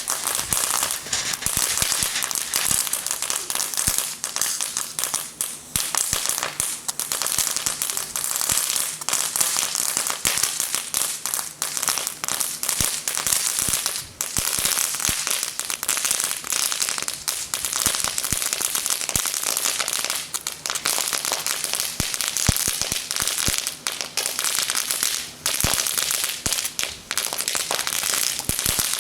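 Firecrackers going off in rapid, continuous strings, a dense crackle of pops over a steady hiss from firework fountains.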